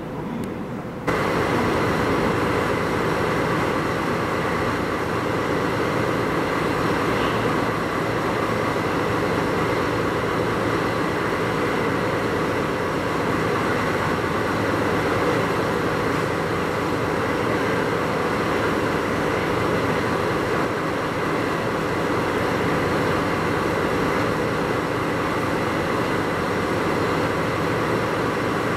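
Electric multiple-unit commuter train running slowly as it approaches the platform, a steady running noise with a faint constant hum. It starts abruptly about a second in.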